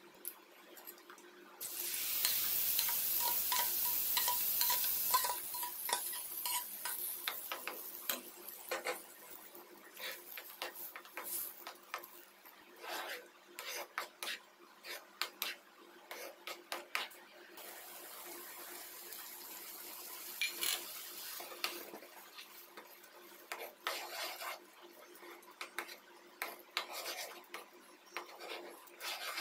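A spatula stirring and scraping a thick mango and coconut barfi mixture around a non-stick pan, in irregular strokes. About two seconds in there are a few seconds of loud sizzling hiss.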